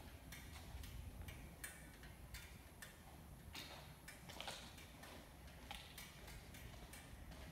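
Faint footsteps on a hard floor, roughly two steps a second, over a low room rumble; otherwise near silence.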